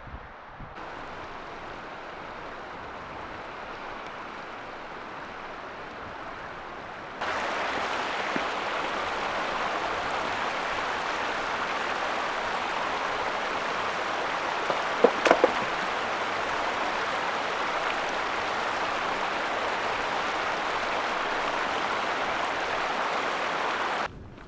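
Mountain stream rushing over rocks, a steady water noise that jumps much louder about seven seconds in. About halfway through there are a few sharp knocks.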